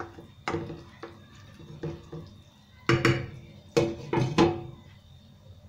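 Wooden spoon knocking against a frying pan while the chicken is turned, then a glass lid set onto the pan, clattering several times against the rim with a short ringing.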